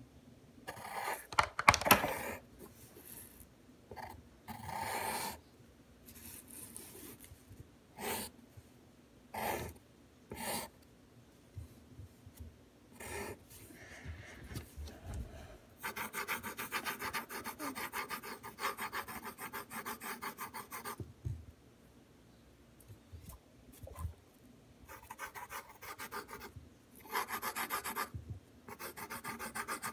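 Pencil scratching on paper: separate drawn strokes in the first half, then long runs of fast back-and-forth shading strokes from about halfway on, with a short pause shortly before the end.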